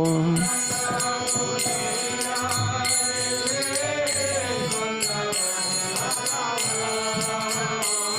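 Bengali devotional song (bhajan) with instrumental accompaniment. A held sung note ends about half a second in, then the accompaniment carries on with steady sustained tones, evenly repeated metallic strokes and softer voices.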